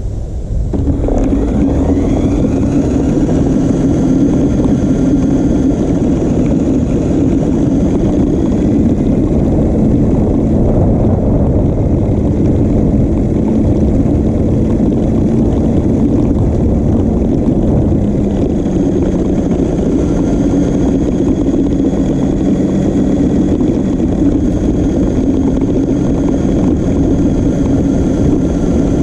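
New Bright Grave Digger RC monster truck driving, heard from a camera mounted on its body. Its electric motor and gearbox hum and whine steadily over a loud rumble from the chassis and tyres, starting about a second in.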